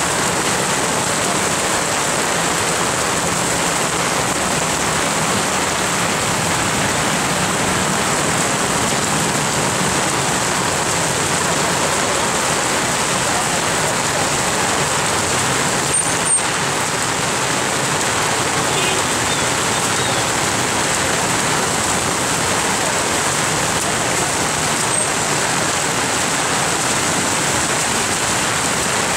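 Heavy rain pouring steadily on a wet road, an unbroken even hiss, with one brief click about halfway through.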